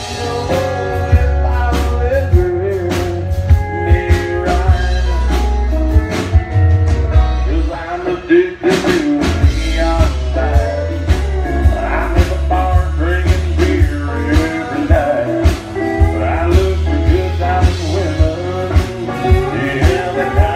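Live country band playing a song, with drum kit, electric bass and guitar and a singer's voice over them; the drums keep a steady beat throughout.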